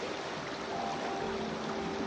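Fast river current rushing and rippling past an inflatable boat: a steady wash of water noise.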